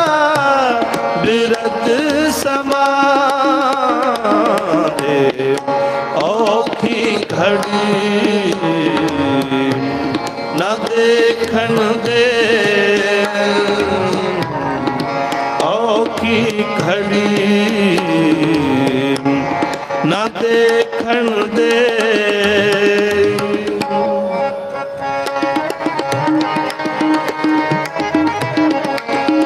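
Sikh shabad kirtan: men singing a Gurbani hymn to harmonium and tabla, the tabla keeping a steady rhythm under the melody.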